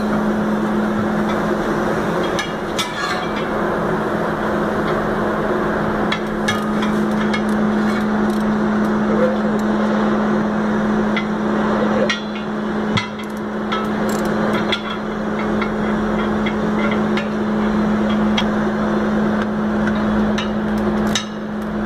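Steel tyre irons and hand tools knocking and scraping against a steel truck wheel rim, a few sharp knocks at uneven intervals, as a heavy truck tyre's bead is levered onto the rim. A steady machine hum runs underneath throughout.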